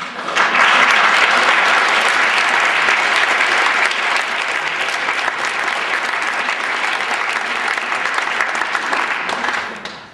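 Audience applauding: the clapping starts abruptly, is loudest in the first couple of seconds and dies away near the end.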